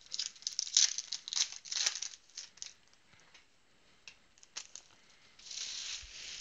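Foil trading-card pack wrapper crinkling and tearing as it is opened, with a longer rustle near the end.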